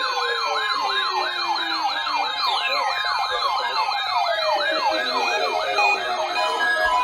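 Layered siren sounds: an electronic wail sweeping up and down about three times a second, with several slower tones winding down in pitch over a few seconds, overlapping each other.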